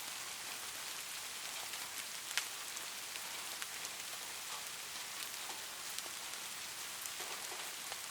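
Steady rain falling on a surface: an even hiss with many individual drops ticking, one louder drop hitting about two and a half seconds in.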